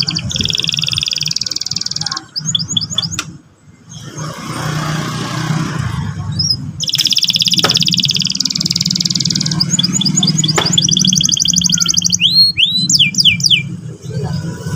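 Domestic canary singing: long, fast, buzzy rolling trills, then quick whistled notes that sweep up and down, loudest near the end. A steady low hum runs underneath.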